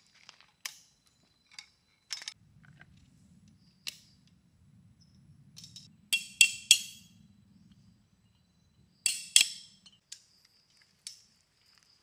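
Sharp metallic clinks and taps of wooden tarp pole sections with metal fittings being handled and fitted together. The loudest are a quick run of three clinks a little after the middle and two more about three seconds later.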